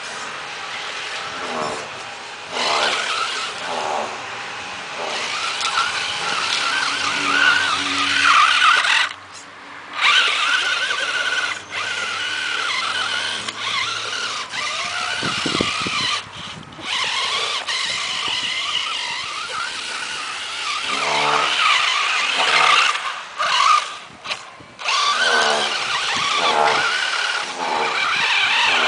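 Radio-controlled 6x6 off-road model truck's electric motor and gears whining, the pitch rising and falling with the throttle and cutting out briefly a few times as it drives.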